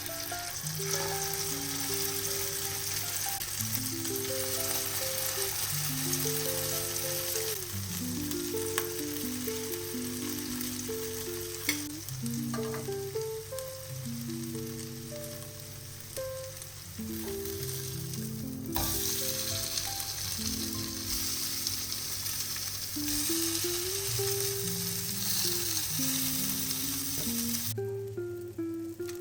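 Chopped chicken cutlets sizzling as they fry in a pan, a steady hiss under soft background music. The sizzling cuts off shortly before the end.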